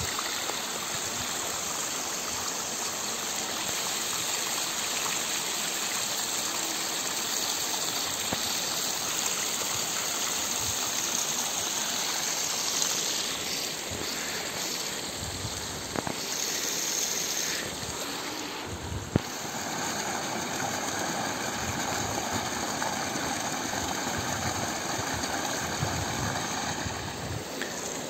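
Irrigation water from a canal channel pouring down a dry-stone terrace wall into a paddy field: a steady splashing rush of running water.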